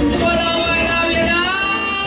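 Argentine folk music: a song with guitar accompaniment and a singing voice.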